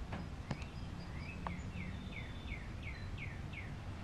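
A bird singing a run of about seven quick, down-slurred whistled notes, roughly three a second, over a steady low background rumble. A couple of sharp clicks come just before the song.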